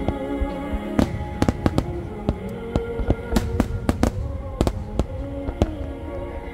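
Aerial firework shells bursting in a dense barrage, with many sharp bangs coming several to a second at uneven intervals. Music with long held notes plays underneath.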